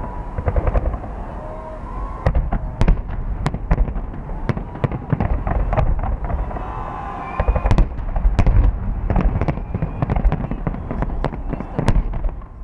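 Fireworks display: many irregular sharp bangs and crackles of shells bursting, in denser volleys about two seconds in and again about seven to nine seconds in, over a continuous low rumble.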